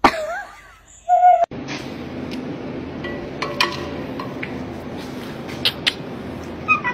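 A husky's short howling whine that slides up and down in pitch, then a second held howl note about a second in. After that, a steady low hum with a few scattered light clicks.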